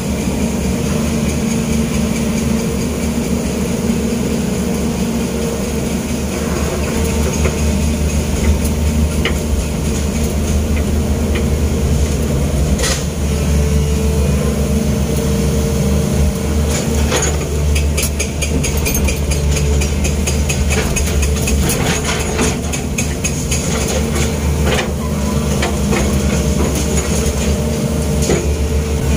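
Long-arm excavator's diesel engine running steadily, heard from inside the cab, with scattered knocks and clanks mostly in the second half as the arm works.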